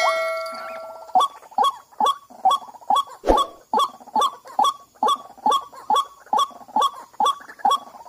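White-breasted waterhens (ruak-ruak) calling in a steady, rapid series, about two to three short falling notes a second, one louder and lower near the middle. A bell-like chime rings at the start and fades within about a second.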